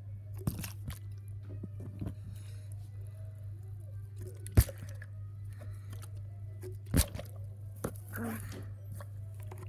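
Partly filled plastic water bottle being flipped and landing, with a few sharp knocks (the loudest about halfway through, another about two and a half seconds later) and plastic crinkling as it is handled near the end. A steady low hum sits underneath.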